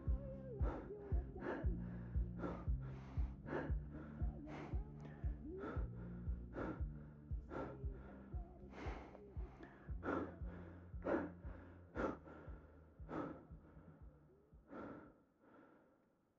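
A person taking sharp gasping breaths, about two a second at first, then slower and fainter, over low sustained music that fades out near the end.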